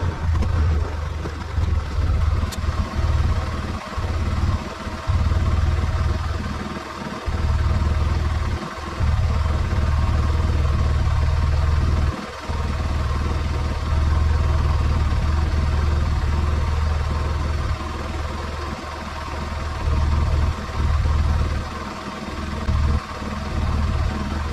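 Arctic Cat side-by-side's engine running steadily, its loudness rising and falling with brief dips.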